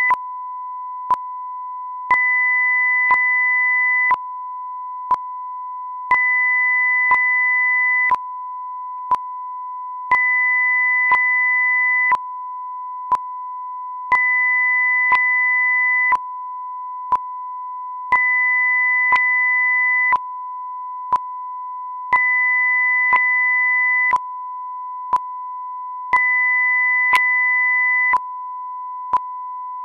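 Audio-video sync test signal: a steady pure test tone, with a second tone an octave higher switching on for two seconds and off for two seconds, and a short sharp click about once a second.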